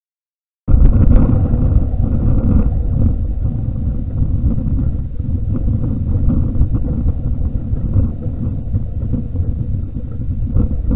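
Wind buffeting a trail camera's microphone: a loud, fluctuating low rumble that starts abruptly under a second in.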